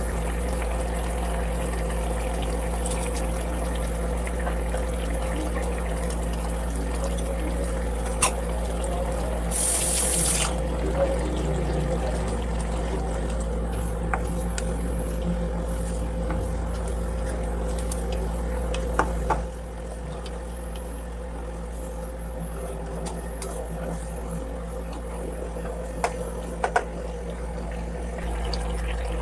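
Chicken and broth simmering in a wok on an induction cooktop: a steady bubbling hiss over the cooktop's low hum, with a brief louder hiss about ten seconds in. A few sharp clinks of a ladle against the pan come through.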